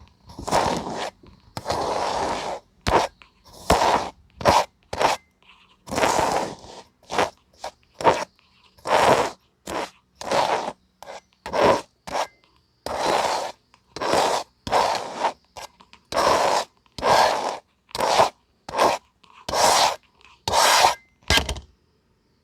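Kinetic sand being cut and scraped in a run of short, separate strokes, roughly one a second, some brief and some lasting about a second.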